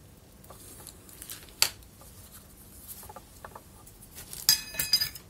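Soldering tools handled and put down on a workbench: a sharp click a little over a second in, a few faint knocks, then a quick run of metallic clicks and clinks with a short ring near the end.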